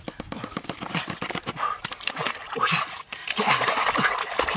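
Hands working in wet mud and shallow water: a run of short squelches and wet slaps, turning to sloshing splashes about three seconds in.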